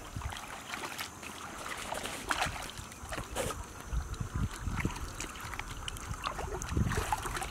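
Water splashing and sloshing, with scattered sharp knocks and a few low thumps.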